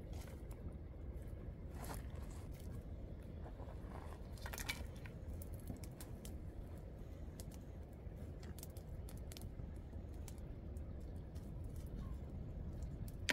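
Small twig fire crackling, with scattered sharp snaps and a brief cluster of louder crackles about four and a half seconds in, over a steady low rumble.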